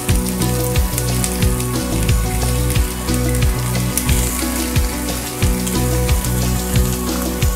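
Steaks sizzling as they sear on hot ridged cast-iron grill pans, a fine crackle, under background music with a steady beat.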